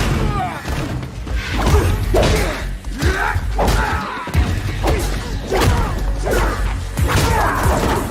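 Action-film soundtrack: loud music with many sharp thuds, whooshes and crashing impacts, as of a fight scene.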